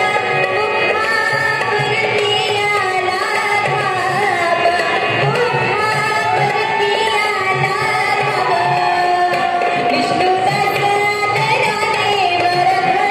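Music: a melody that slides and bends in ornamented curves, over a steady pattern of low drum strokes.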